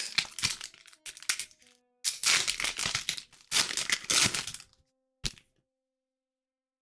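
Foil trading-card booster pack wrapper crinkling and tearing as it is ripped open, in four bursts, then a single short tap a little after five seconds in.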